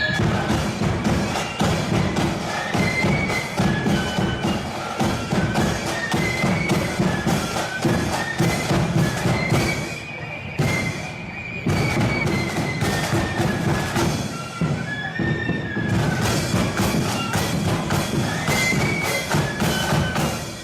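Blood-and-thunder marching flute band playing a tune: a shrill melody on flutes over heavy, steady bass drum and snare drum beats. The drums drop out briefly about ten seconds in while the flutes carry on.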